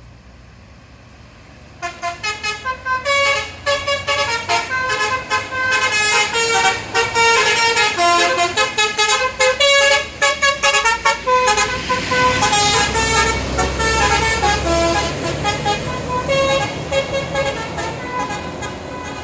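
Multi-tone 'telolet' horn on an Indonesian intercity bus, playing rapid stepped melodic phrases that start about two seconds in and carry on to the end. About halfway through, the bus engine's low rumble swells as the bus passes.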